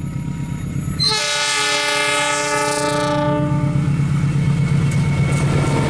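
KAI CC206 diesel locomotive sounds its air horn in one long multi-note blast, starting about a second in and lasting nearly three seconds, over the steady drone of its engine. As the horn ends, the rumble of the locomotive and its tank wagons grows louder as the train draws close.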